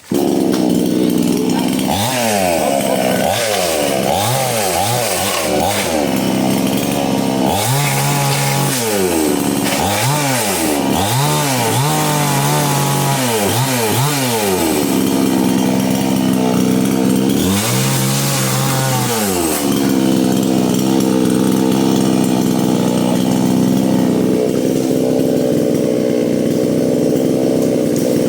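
A motor engine revved up and down over and over in quick bursts, then held at a steady speed for the last third or so.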